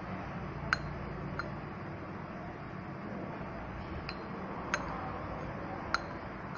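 A handful of light metallic clicks and clinks as the steel housing of a motorcycle starter motor is handled and fitted down over the armature, over a steady low hum.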